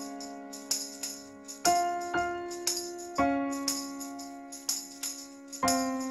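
Background music: slow, held keyboard chords that change every second or two, over a jingling tambourine-like beat of about two strokes a second.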